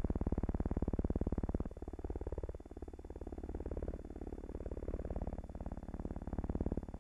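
Piston aircraft engines droning with a rapid, even pulse, their pitch wavering up and down through the middle of the stretch.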